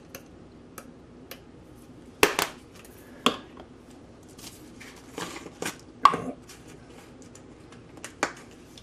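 Scattered clicks and knocks of spice jars and their lids being handled while seasoning meat in a stainless steel bowl. About half a dozen sharper knocks stand out, the loudest about two seconds in and about six seconds in.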